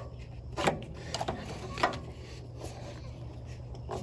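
Irregular metallic clicks and knocks from a Snap-on strap oil filter wrench and its ratchet handle being worked on a spin-on oil filter, with a steady low hum underneath.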